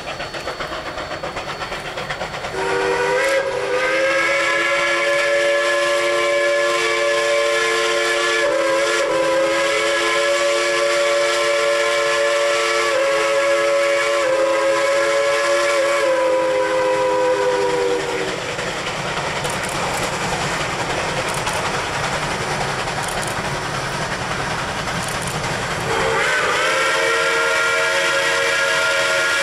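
Chime whistle of a Shay geared steam locomotive, several notes sounding together in one long blast that starts a few seconds in and lasts about fifteen seconds, then sounds again near the end. Between the blasts the engine's rapid exhaust beats and steam hiss carry on as it works toward the camera.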